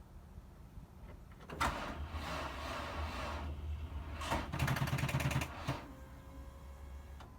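Car being tried on a discharged battery and failing to start: about two seconds of noisy whirring, then a click and about a second of rapid clicking, near ten a second, typical of a starter solenoid chattering on a weak battery.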